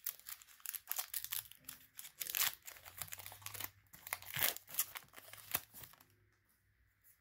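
Foil wrapper of a Pokémon trading-card booster pack crinkling and crackling as it is torn open and crumpled by hand. The crackling stops about six seconds in.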